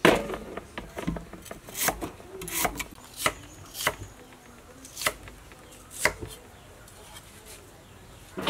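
Kitchen knife chopping on a wooden cutting board: a string of sharp, irregular chops, closely spaced for the first four seconds, then two more about a second apart, stopping about six seconds in.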